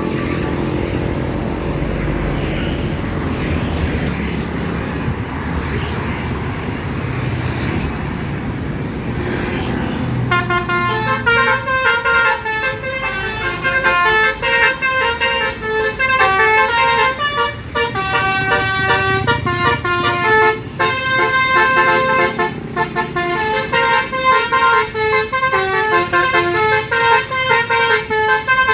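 For about ten seconds a bus engine runs under steady traffic noise. Then a bus's basuri melody horn starts playing a tune, a quick run of changing horn notes that goes on to the end.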